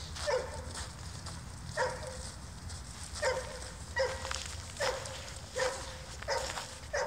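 Yorkshire terrier barking: about eight short, high yaps, roughly one a second.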